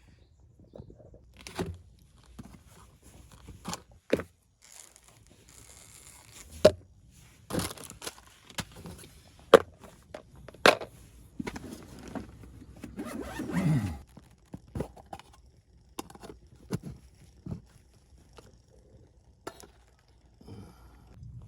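Scattered sharp knocks and clicks with rustling, as things are handled by hand, and a longer scrape a little past the middle that drops in pitch as it ends.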